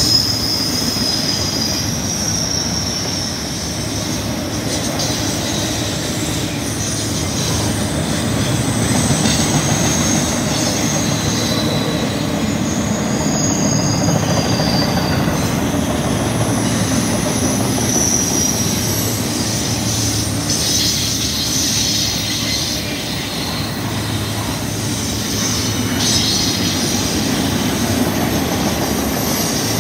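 Double-stack intermodal freight cars rolling past at close range: a steady rumble of steel wheels on rail, with high-pitched squeals from the wheels that come and go.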